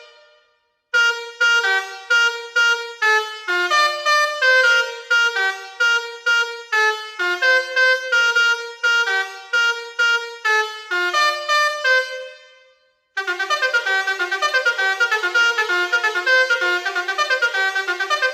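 Basuri V4 multi-tone telolet horn playing a preset melody of separate, evenly paced notes; it stops about twelve seconds in, and after a short pause a faster, busier tune starts.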